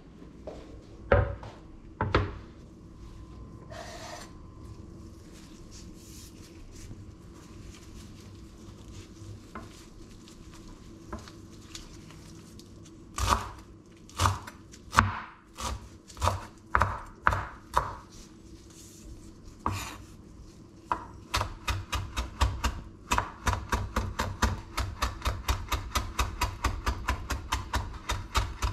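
Chef's knife chopping fresh leafy herbs on a wooden cutting board. The board is set down with two knocks near the start. After a quiet stretch the knife cuts in slow single strokes, about one a second, then turns to fast rhythmic mincing of about four strikes a second.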